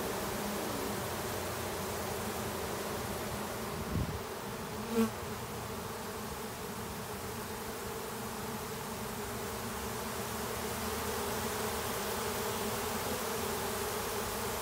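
Dense, steady buzzing of a honey bee swarm, a mass of bees in flight and crawling over the cluster on the wall. A brief knock comes about four seconds in and another short sound a second later.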